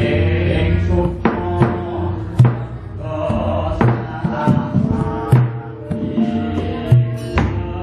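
Javanese gamelan playing sustained metallic tones, punctuated by several sharp knocks of the puppeteer's keprak and dodogan.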